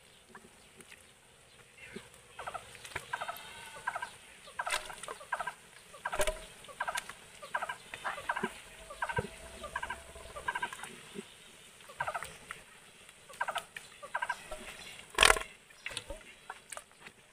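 Domestic fowl calling: a long series of short, rattling calls repeated every half second or so. One loud sharp knock comes near the end.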